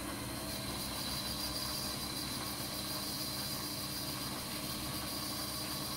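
Mini lathe running steadily, its motor humming while a grooving tool cuts a Delrin (acetal) bushing down, with an even cutting hiss over the hum.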